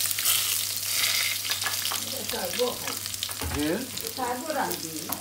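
Freshly grated garlic and ginger paste sizzling in hot vegetable oil in an aluminium frying pan. The sizzle is strongest in the first second or two, then settles into steady frying. A voice speaks quietly in the second half.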